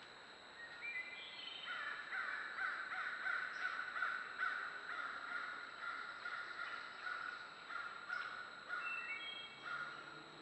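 Crows cawing, a long run of calls that starts about a second in and goes on almost without a break, rising and falling in loudness.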